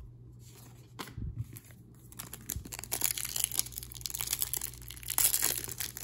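Plastic trading-card pack wrapper crinkling and tearing as it is pulled open. The crackle starts about two seconds in and grows louder toward the end.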